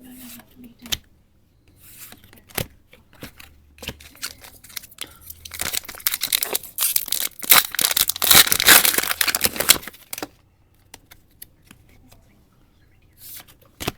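Pokémon booster pack wrapper being torn open and crinkled by hand, a loud rustling rip for several seconds in the middle, with scattered small handling clicks before and after.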